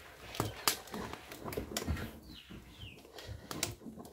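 A long wooden spoon knocking and scraping irregularly against the inside of a large aluminium pot while stirring thick, cooking green-corn porridge. A bird gives two short chirps about halfway through.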